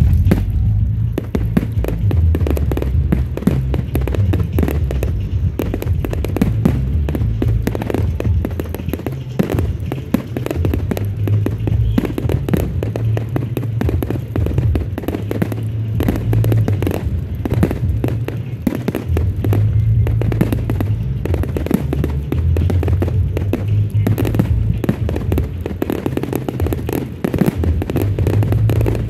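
A firework display going off nonstop, dense bangs and crackles following one another in quick succession, with music playing underneath.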